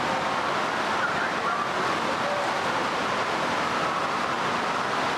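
Steady rushing din of an indoor water park: running water with a few faint, distant voices rising and falling.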